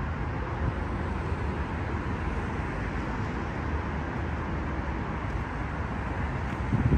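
Steady road traffic noise from a busy multi-lane highway, cars passing in a continuous rush with no single vehicle standing out.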